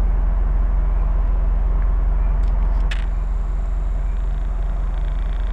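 Steady in-cabin drone of a Mercedes-Benz SLK driving at speed: low engine hum under an even rush of road and wind noise, with two light clicks around the middle.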